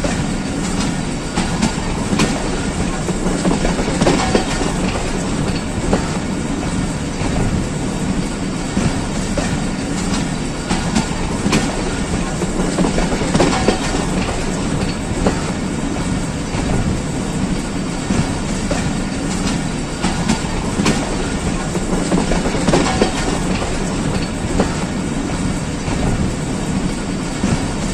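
Wheels of a moving passenger train, heard from a coach door: a steady rumble on the track with irregular clicks as the wheels cross rail joints and points.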